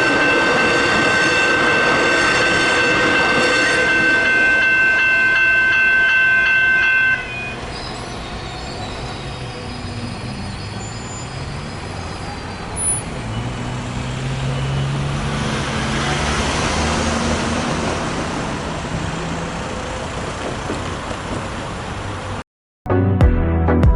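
Level crossing warning bells ringing steadily over passing-train rumble, stopping abruptly about seven seconds in. A quieter rumble follows, with a low hum that rises and swells midway, like an electric train moving off. Music starts just before the end.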